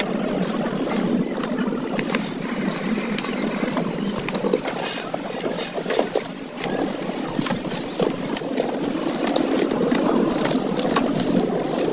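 Scattered scrapes and taps of a metal rod against wet sand-cement plaster as a groove is cut into a wall, over steady outdoor background noise.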